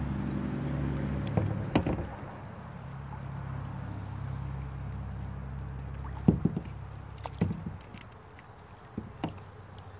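Kayak on the water: a few sharp knocks and splashes from paddle and hull, over a steady low mechanical hum that fades out about two-thirds of the way through.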